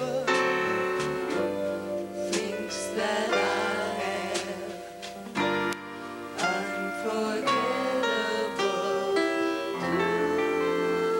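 Live show band with piano and singing, notes changing throughout; near the end a long note is held with vibrato.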